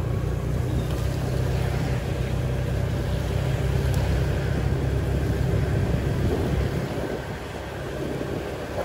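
Low steady rumble of a moving vehicle, engine and road noise together, easing off about six and a half seconds in.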